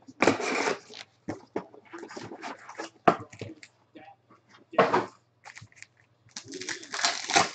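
Trading cards and foil pack wrappers being handled: irregular rustling, crinkling and cards sliding against each other, in short bursts with louder spells near the start and near the end.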